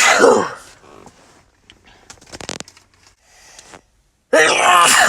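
Two loud human sneezes: the voiced tail of one dies away in the first half-second, and a second sneeze starts a little past four seconds in. Between them there is a brief, quieter noise.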